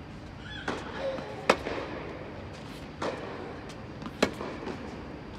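Tennis ball struck back and forth by racquets in a rally: four sharp pops, the two loudest about a second and a half in and a little after four seconds in, each echoing briefly around the indoor court hall.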